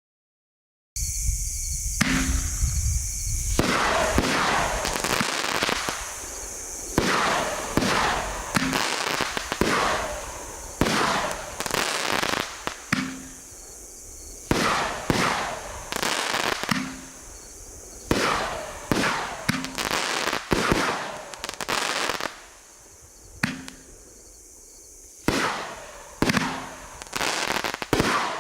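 A 500-gram, 9-shot consumer fireworks cake ('Black Magic') firing its shots in sequence: a run of sharp, loud bangs, each trailing off, starting about a second in and repeating roughly every second or two.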